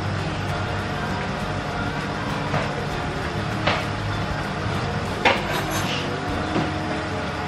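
Steady mechanical hum of a running kitchen appliance, with a few sharp clinks of kitchenware about two and a half, three and a half and five seconds in.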